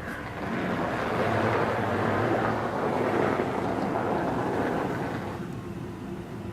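2008 Mercury Grand Marquis's 4.6-litre V8 working under load as the car is driven out of deep snow, with a broad rushing noise of tyres churning through the snow. It swells at the start and eases off near the end.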